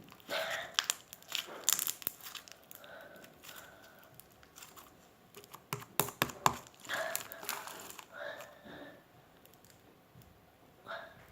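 Crunchy slime being squeezed and worked by hand, giving irregular bursts of crackling and popping, with the sharpest pops about six seconds in.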